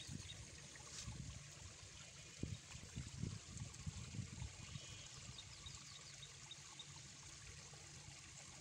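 Faint, steady trickle of water running in a small ditch. A few low bumps come a few seconds in, and a run of short, high chirps comes past the middle.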